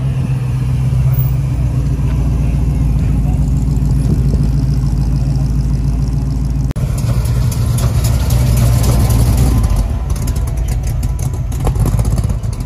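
A car engine idling loudly and close by, with a steady, deep, low rumble.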